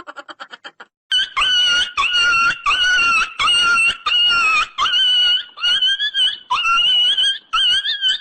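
High-pitched comedy squeal sound effect: a string of squeals about two a second, each scooping up at its start and then holding its pitch. A fast fluttering trill fades out in the first second, just before the squeals begin.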